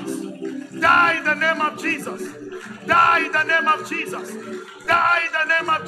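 Held keyboard chords under a loud voice calling out short, impassioned phrases about every two seconds, as in fervent spoken prayer.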